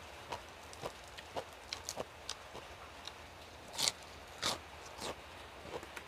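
Close-up chewing and mouth sounds of a man eating spicy papaya salad with cabbage: irregular wet clicks about twice a second, with two louder crunches about two thirds of the way through.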